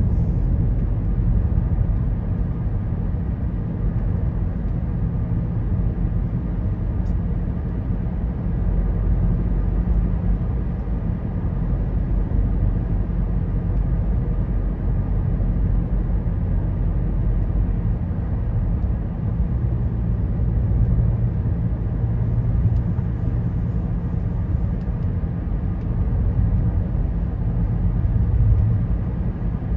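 Steady low rumble of a car's tyres and engine, heard from inside the cabin while driving.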